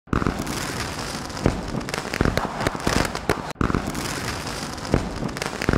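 Sound effect of a subscribe-button end screen: a dense crackle of many sharp pops, which cuts out for an instant about three and a half seconds in and starts over.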